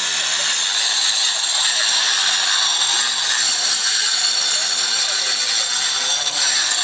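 Handheld corded angle grinder cutting into a stone wall: a loud, steady, high-pitched grinding whine with no break.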